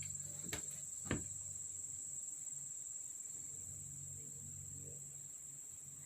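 Steady high-pitched drone like an insect chorus, with two short knocks about half a second and a second in.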